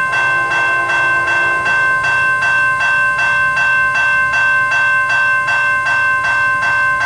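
Railroad grade crossing bell ringing steadily with an even clang, about three strikes a second, as a train approaches.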